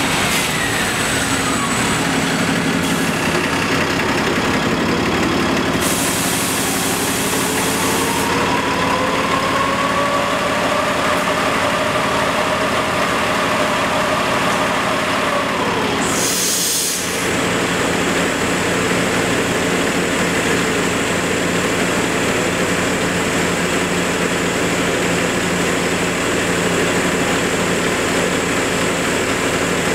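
New Flyer Xcelsior diesel-electric hybrid transit bus pulling in and stopping, its engine running steadily with a whine that rises and then falls away. Hisses of compressed air come about six seconds in, lasting about two seconds, and again briefly around sixteen seconds in.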